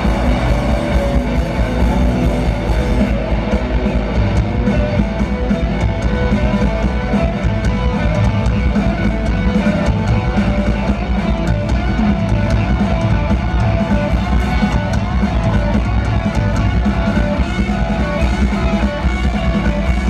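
Rock band playing live through an arena sound system, with a drum kit and electric guitars, heard from among the audience.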